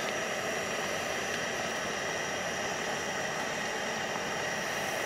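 Steady hiss of a camping gas burner with a heater top running, while hot water is poured from a kettle into a cup.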